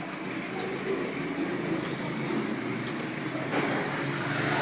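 Computer keyboard typing: irregular keystroke clicks, one sharper click about three and a half seconds in, over a steady background hum.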